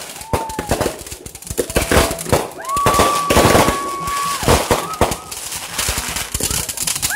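Fireworks display: aerial shells bursting into crackling stars, a dense, irregular run of sharp pops and crackles. A steady high tone is held for about a second and a half near the middle.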